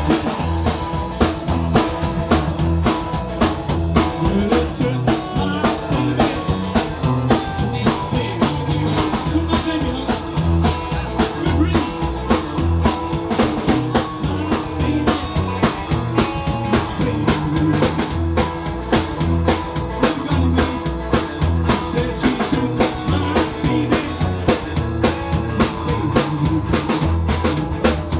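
Live rockabilly band playing: upright double bass, electric guitar and drum kit with a steady, driving beat.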